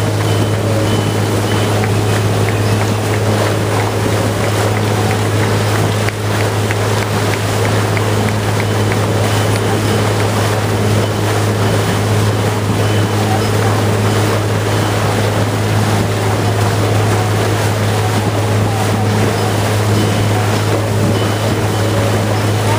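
A boat's engine running steadily under way, a deep even drone, over the constant rush of water churning in the wake alongside.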